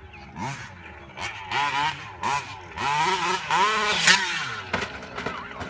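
Losi 5T 1/5-scale RC truck's two-stroke petrol engine, fitted with a Bart exhaust pipe, revving in a string of throttle blips that rise and fall in pitch. The longest and loudest rev comes a little past the middle.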